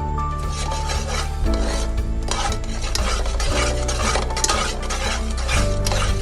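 A spoon or spatula stirring and scraping in a cooking pan, in repeated strokes, over steady background music.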